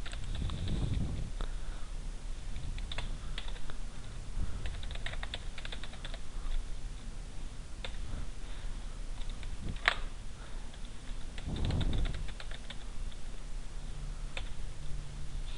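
Computer keyboard being typed on: short key clicks in scattered runs with pauses between them, over a faint steady hum.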